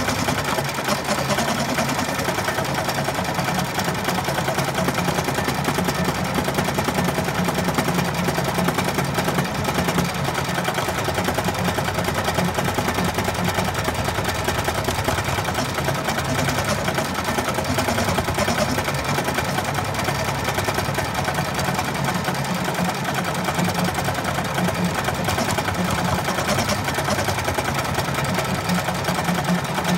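Bernina E16 sixteen-needle industrial embroidery machine stitching out a design, running at a steady, even pace without pauses.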